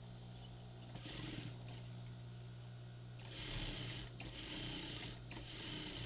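Sewing machine stitching a shirt cuff, running in short bursts with longer runs in the second half, over a steady low motor hum.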